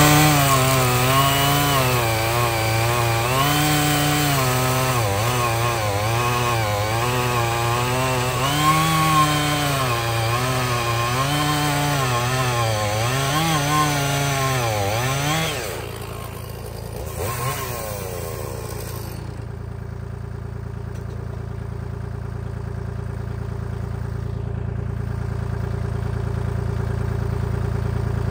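Two-stroke chainsaw cutting through a log, its engine pitch dipping and recovering again and again as the chain loads up in the wood. After about fifteen seconds the saw comes off the cut and stops, leaving a steady lower engine hum that slowly grows louder.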